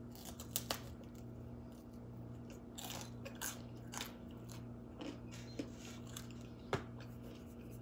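A person chewing a mouthful of veggie pizza close to the microphone: irregular mouth clicks and smacks, with a faint steady hum beneath.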